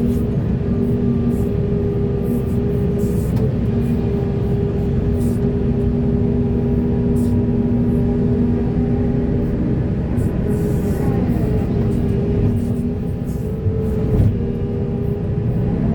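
Heavy earthmoving machinery running: diesel engines under load with a steady whine on top, and the pitch dips about two-thirds of the way through.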